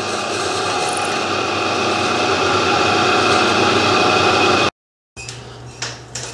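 Drill press running with a twist drill cutting through cast aluminium, a steady machine sound that grows slightly louder and cuts off abruptly about four and a half seconds in. A lathe then runs quietly after a brief silence.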